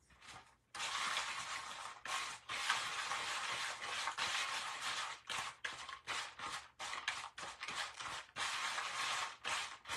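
Wooden popsicle stick stirring and scraping grated polymer-clay cheese coated in Mod Podge around a paper bowl. A rustling scrape in long strokes at first, then quicker short strokes in the second half.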